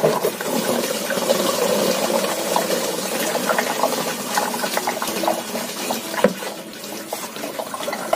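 Gasoline glugging and gurgling out of two upturned glass bottles into plastic funnels. One bottle is poured straight and gulps air; the other is swirled so the fuel drains in a vortex. The gurgling eases a little near the end as the straight-poured bottle runs empty.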